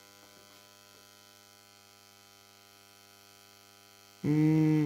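Faint, steady mains-frequency hum from a running GU-50 vacuum-tube plasma flame generator. Near the end, a much louder pitched hum sounds for about half a second.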